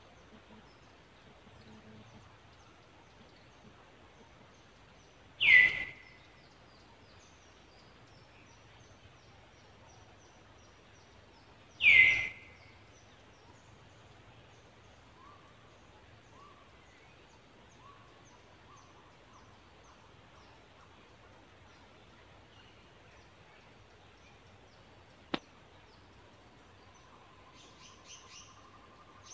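Quiet outdoor ambience with faint bird chirping, broken twice by a loud, short call that falls in pitch, about six seconds apart. A single sharp click comes near the end.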